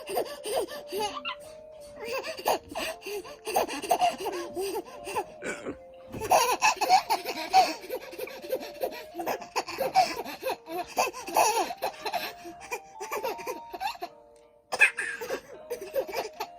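Baby laughing hard in rapid repeated bursts of giggles and belly laughs, set off by dad's hiccups, over a simple background tune of held notes. The laughter breaks off briefly about six seconds in and again near the end.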